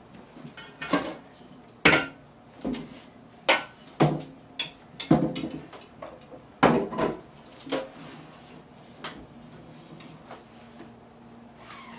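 Metal tripod light stand with a boom arm being handled and raised, its tubes and joints knocking and clattering in about ten sharp knocks over the first eight seconds. After that it goes quieter, with a faint low steady hum.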